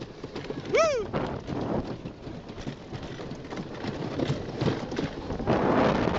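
Cyclone wooden roller coaster train clattering and rattling along its wooden track, with a rider's short rising-and-falling whoop about a second in. Near the end the noise swells into a louder rush as the train tips over into a drop.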